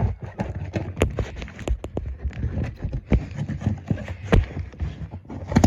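A cardboard box being cut and opened with a craft knife: a string of irregular clicks, taps and scrapes of cardboard, a few of them sharper knocks.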